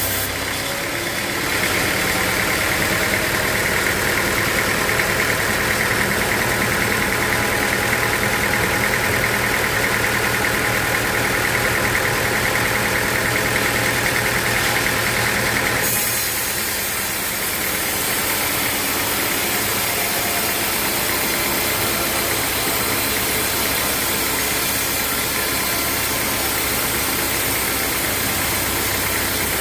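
Sawmill machinery running steadily. A louder, higher-pitched sound comes in about two seconds in and stops abruptly at about sixteen seconds, leaving the steady machine run.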